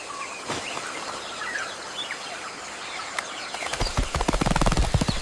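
Jungle ambience: an even hiss with scattered short bird chirps. About three and a half seconds in, a louder, rapid run of low pulsing clicks begins and continues.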